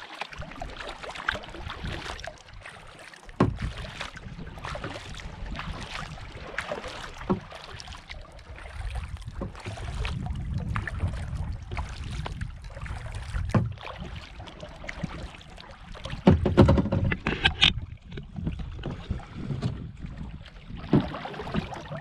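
Lake water lapping and splashing against a kayak close to the microphone as it moves along, with irregular small splashes throughout and a louder run of splashing about three-quarters of the way through.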